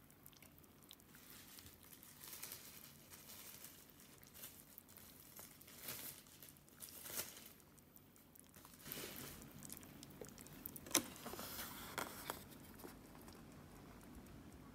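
Faint crinkling and rustling of an instant yakisoba cup's paper lid and packaging being handled, in several bouts, with one sharp tick about eleven seconds in.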